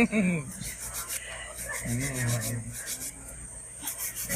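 Hand nail file rasping back and forth over acrylic nails in quick repeated strokes, shaping the sides of the nail straight.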